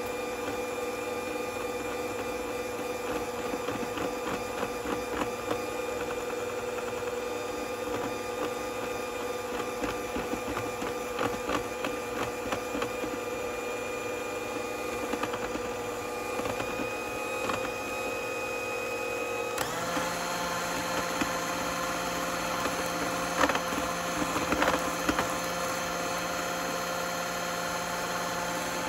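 Electric hand mixer running steadily with a constant motor whine as its beaters whip a thick cream cheese glaze in a plastic tub. About twenty seconds in, the motor's note changes and then holds steady again.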